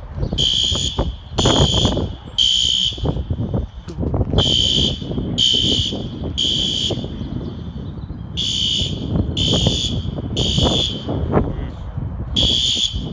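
System Sensor fire alarm horn sounding the temporal-3 evacuation pattern: three loud, high-pitched beeps, a pause, then three more, repeating. The building's fire alarm system is in alarm on a false alarm.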